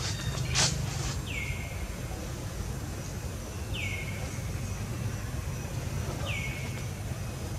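A bird calling three times, about every two and a half seconds, each call a short note sliding down in pitch, over a steady low background rumble. A sharp click about half a second in.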